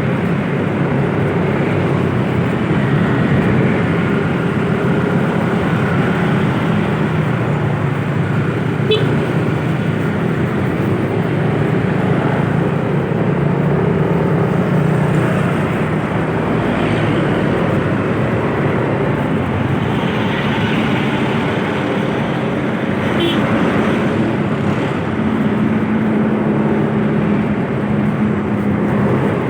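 Steady road-vehicle noise while driving: an engine running under a continuous haze of tyre and road noise.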